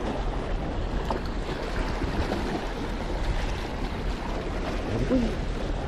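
Steady wind and wave noise, with wind rumbling on the microphone.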